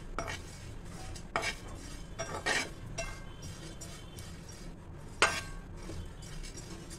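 Steel spoon scraping and clinking against a non-stick pan while stirring muskmelon seeds as they dry-roast, with a few sharper knocks of spoon on pan, the loudest about five seconds in.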